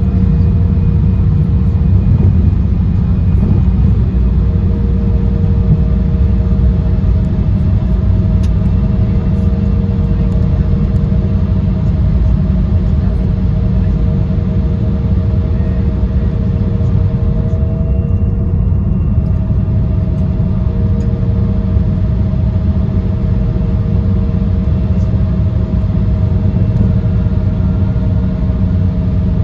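Jet airliner cabin noise while taxiing after landing: a loud, steady low rumble from the engines at idle and the aircraft rolling, with two steady humming tones over it.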